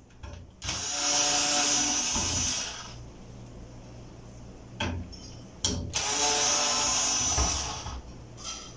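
Cordless screwdriver running in two bursts of about two seconds each with a steady whine, backing out the screws that hold a clothes dryer's drum support bracket. A few short clicks come between the bursts.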